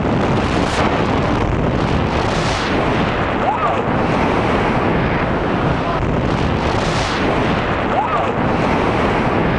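Loud, steady wind rushing over the action camera's microphone during a tandem skydive under an open parachute canopy.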